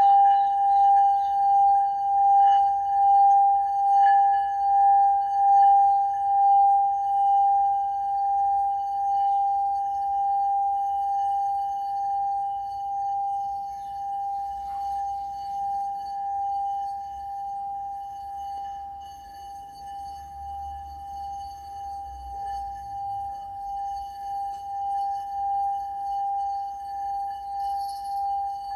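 Singing bowl sounding one long held tone with overtones above it. Its loudness wavers in a steady pulse, about one swell a second; it fades gradually, then swells up again near the end.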